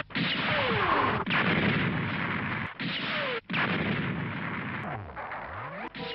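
Anime sound effects of the Gundam's beam rifle firing and of enemy machines exploding, several short clips cut hard together. Loud, noisy blasts with a few falling-pitch zaps, broken off abruptly at each cut.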